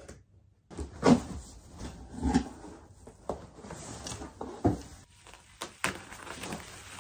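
A large cardboard TV box being cut and pulled open, with cardboard scraping and several dull thumps. Near the end come sharp pops and crinkles as the bubble wrap around the screen is cut into.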